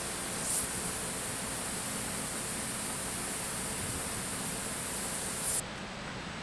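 Sandpaper hissing steadily against the outside of a quarter-cut maple stave drum shell during its final, finer-grit sanding. It stops abruptly near the end.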